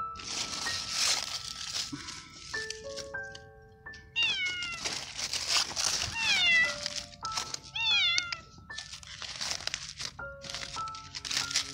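Young cat meowing about three times, each a short call falling in pitch, over background music with sustained notes.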